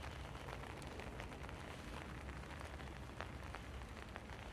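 Light drizzle falling: a faint, steady hiss of rain with scattered small ticks.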